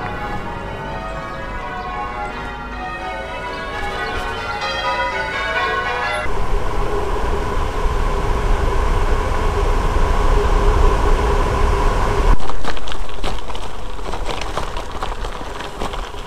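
Church bells being rung in changes, a quick run of overlapping bell strikes for about the first six seconds, over low wind rumble on a bike-mounted microphone. After a sudden change the bells are gone, leaving wind rumble and a steady hum, and in the last few seconds a crackle of bicycle tyres on a gravel track.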